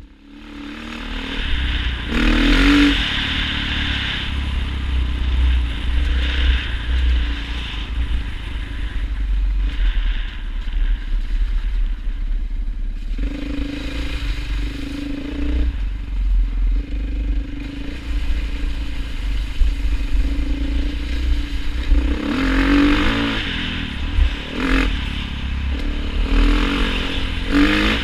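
A motor vehicle's engine running while driving, its pitch rising and falling at times, with clatter and a low rumble.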